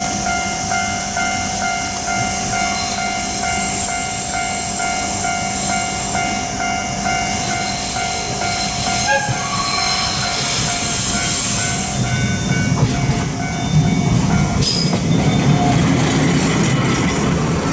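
Japanese level-crossing alarm ringing its steady "kan-kan" at about two strokes a second. From about twelve seconds in, the low rumble of a DE11 diesel-hydraulic locomotive grows as it approaches the crossing.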